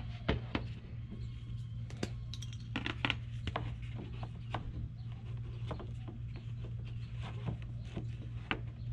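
Scattered light clicks, knocks and rubs of a metal hitch step bar being shifted and fitted in the receiver, over a steady low hum.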